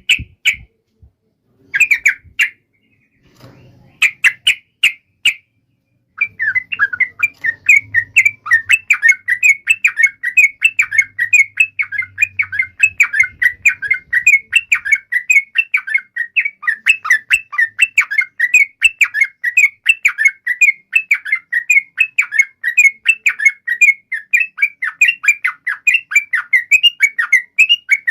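Yellow-vented bulbul (trucukan) singing. At first there are a few short, separate calls, then from about six seconds in a long, unbroken run of quick notes (the 'ropel' song).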